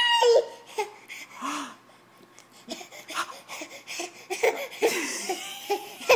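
Baby laughing, starting with a loud high squealing laugh and going on in quieter, broken bursts of giggling.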